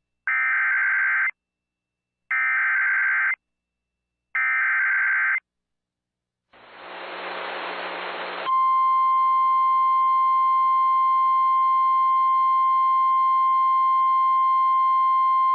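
Emergency Alert System SAME header: three one-second bursts of digital data tones, about a second apart. Then about two seconds of radio static, and from about eight seconds in the steady single-pitch weather radio warning alarm tone, announcing a severe thunderstorm warning.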